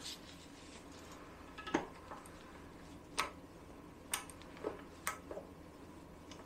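A handful of short, sharp metal clicks and taps, about five spread over a few seconds, from hand tools working on the engine while the cylinder head is being pulled off.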